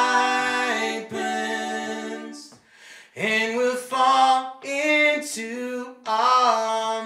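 Male voices singing a folk song in harmony, in long held notes and short phrases, with little instrumental backing. There is a brief pause about two and a half seconds in.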